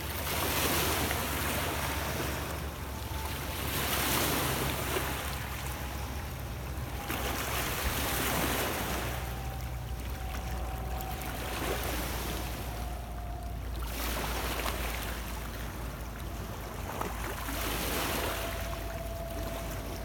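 Small waves on Lake Ontario washing in over a stony shore, a surge of water about every three to four seconds.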